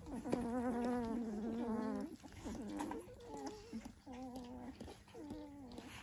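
Dalmatian dog vocalising: one long, wavering call, then four shorter calls about a second apart.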